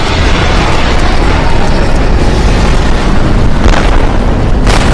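Loud, continuous explosion and fire rumble sound effects in an animated battle scene, with two sharp bangs near the end.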